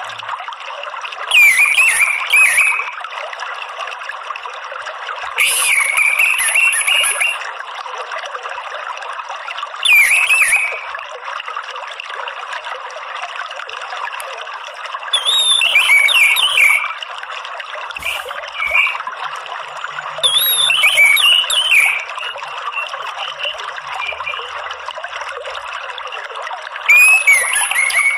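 Orange-headed thrush singing about six short warbling phrases, each a second or two long and several seconds apart, over a steady sound of running water.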